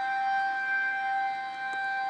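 Outdoor civil defense siren sounding a tornado warning: one steady tone with overtones, held at a single pitch.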